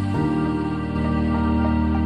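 Background music: soft, sustained chords of a slow, gentle piece, with a chord change near the end.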